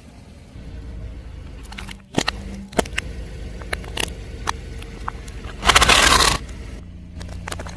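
Car tyre crushing objects over a low engine hum: a few sharp cracks and snaps, then one loud crunch about six seconds in.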